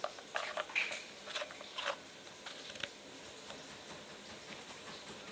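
A quick run of light clicks and rattles, like parts or tools being handled, over the first three seconds, then only faint room hiss.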